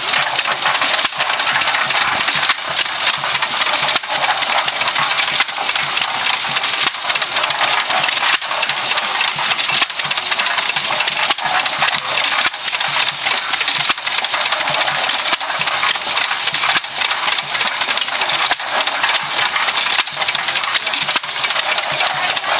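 Small single-cylinder hit-and-miss gas engine running and belt-driving a cement mixer, with sharp firing knocks coming at uneven intervals.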